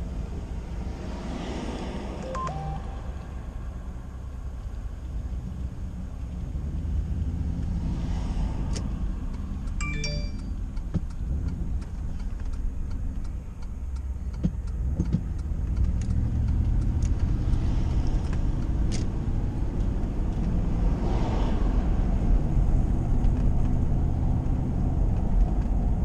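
Car running down the road, heard from inside the cabin: a steady low engine and tyre rumble that grows louder about two-thirds of the way through, with a few faint clicks and rattles.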